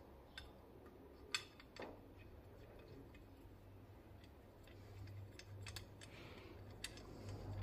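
Faint, scattered clicks of small metal carburetor parts being handled and fitted on the workbench, over a low steady hum; the sharpest click comes about a second and a half in.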